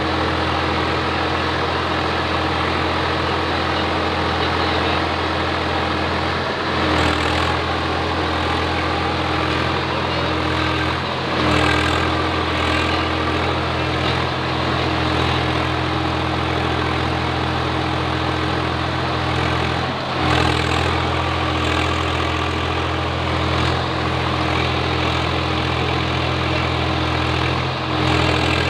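Swaraj 744 XT tractor's three-cylinder diesel engine running steadily under load as it pulls a fully loaded trolley. Four times the engine sound briefly dips and then swells back a little louder.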